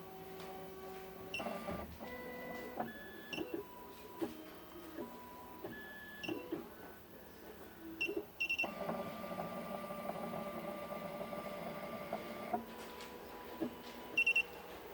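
Miracle A9 key machine running its automatic clamp calibration: the stepper motors whine at a steady pitch that jumps to a new pitch every second or two as the carriage moves, with one longer run of about four seconds near the middle. Short, high double chirps come in between the moves.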